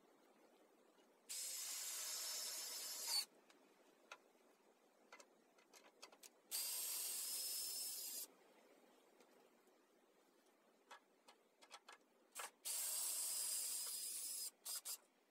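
Cordless drill driving screws into a wooden beam, running in three bursts of about two seconds each, with small clicks and knocks of handling between them.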